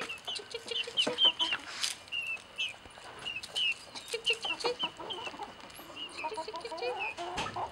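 Young five-week-old Ameraucana chickens peeping and clucking: a run of short, high chirps again and again, joined by lower calls in the second half.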